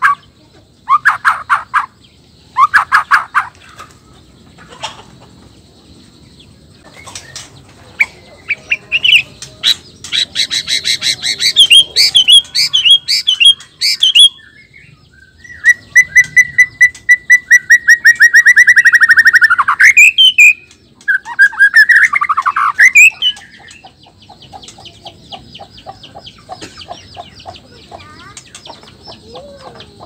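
Male white-rumped shama of the black-tailed Nias strain singing a loud, varied song. It opens with three or four short whistled phrases about a second apart, then a fast run of high trills and chips, a long rapid trill held near one pitch, and a swooping phrase. Near the end it tails off into quieter quick chatter.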